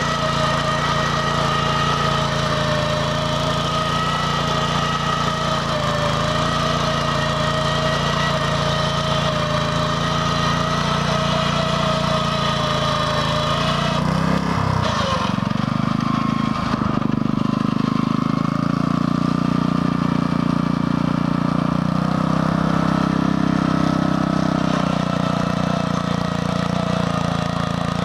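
BCS 850 walk-behind tractor's engine running steadily while driving a Berta rotary plow through sod. The engine note shifts about halfway through, then holds steady again.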